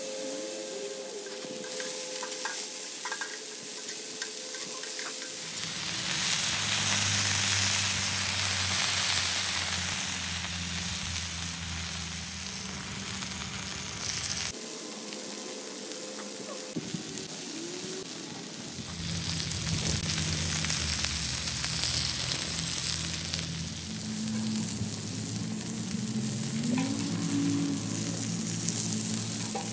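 Chorizo smashburger patties sizzling on a hot steel flat-top griddle over a wood fire. The sizzle swells much louder twice, for several seconds each time, about six seconds in and again around twenty seconds.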